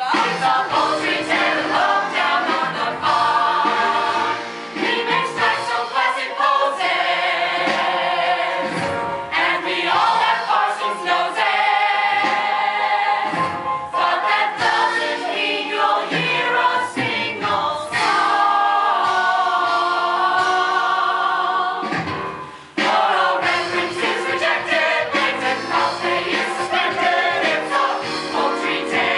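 A stage cast singing a musical theatre number together as a chorus, with musical backing.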